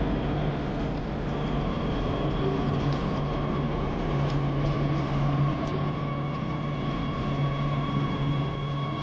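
Metro train running, a steady rumble of wheels on rails with a whine from its motors that strengthens about halfway through.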